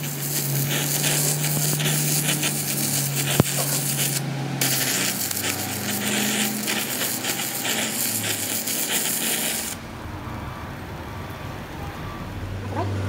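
Metal being worked in a workshop: a harsh rasping, grinding noise over a steady low hum, with a short break about four seconds in, stopping about ten seconds in.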